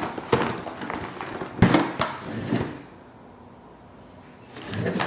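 Handling noise from a boxed product being moved and handled: several sharp knocks with scraping and rustling over the first three seconds, then a short softer swell of noise near the end.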